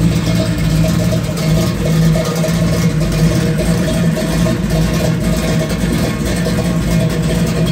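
1967 Camaro's big-block V8, fitted with a Comp Cams Mutha Thumper camshaft, idling steadily through a Flowmaster Super 44 stainless steel exhaust with stock cast iron manifolds.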